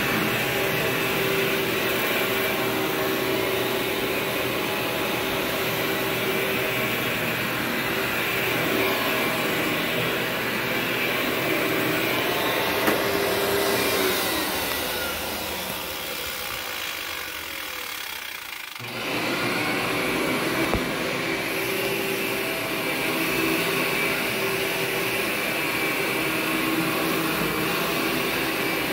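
Workhorse vacuum cleaner running steadily over carpet. About 14 seconds in its motor winds down with a falling pitch, then about 19 seconds in it comes back up to full speed abruptly.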